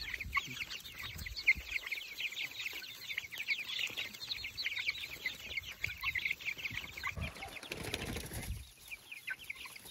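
A flock of young white meat chickens peeping, many short high peeps overlapping in a dense chorus that thins out about seven seconds in. A low rustling noise follows near the end.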